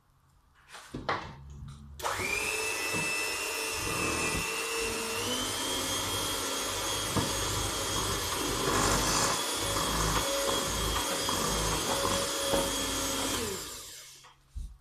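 Electric mixer switched on about two seconds in, running steadily with a high motor whine that steps up slightly in pitch after a few seconds, then winding down and stopping near the end.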